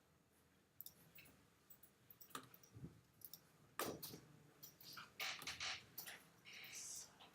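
Faint, irregular clicks from a computer mouse or keyboard being worked, with a brief soft rustle near the end.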